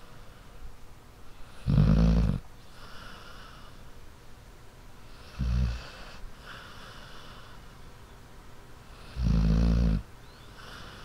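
A sleeping dog snoring softly: three low, rattling snores a few seconds apart, the middle one shorter, each followed by a softer breathy exhale.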